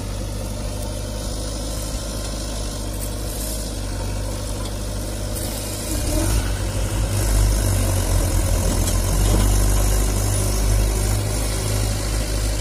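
Diesel engine of a JCB 3DX backhoe loader running steadily while it digs and swings soil, with a tractor engine idling alongside. The engine sound gets louder and more uneven about six seconds in.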